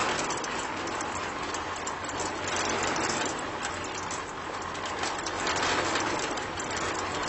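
Small electric motor turning the drum of a homemade toy concrete mixer, a steady whirring rattle.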